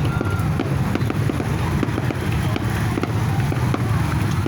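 Fireworks crackling in many quick, irregular pops over a steady low rumble.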